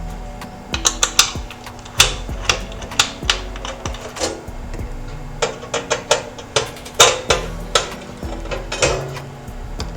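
Screws being undone from a car amplifier's metal case: an irregular run of sharp metallic clicks and clinks from the screwdriver and the loosened screws, over background music.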